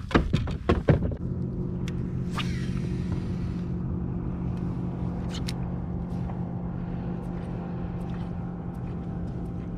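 A few sharp knocks in the first second, then a motor running at a steady, unchanging pitch with an even hum.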